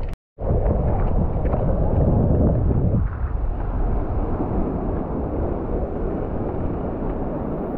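Wind buffeting the microphone with a steady low rumble, over small waves washing across a flat rocky shore. It starts about half a second in and eases a little about three seconds in.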